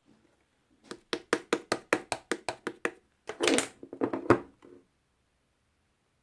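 Fingers tapping slime about a dozen times at a quick, even pace, roughly six taps a second. A short scraping rustle and a few more taps follow.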